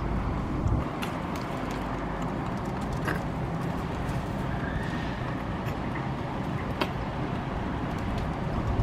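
Feral pigeons on a windowsill: scattered taps and clicks, with one faint, brief squeak about halfway through, over a steady hum of city traffic.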